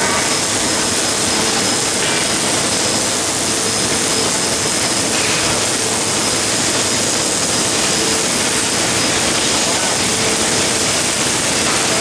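MIG welding arc from a CNC gantry welding machine, a loud, steady, dense hiss with a faint steady hum underneath.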